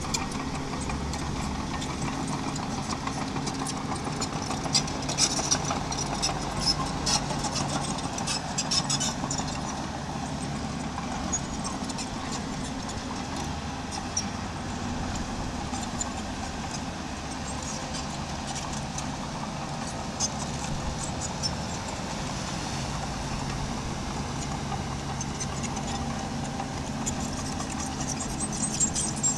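Diesel engine of a miniature bulldozer or dump truck running steadily, with a cluster of sharp metallic clicks and rattles about five to nine seconds in and again near the end.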